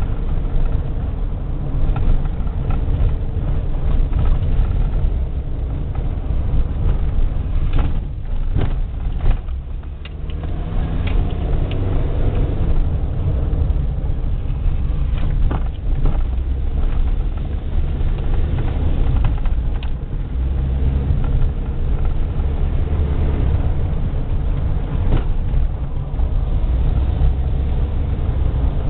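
Car engine and road noise heard from inside the moving car: a steady low rumble, with a few sharp knocks about eight to ten seconds in.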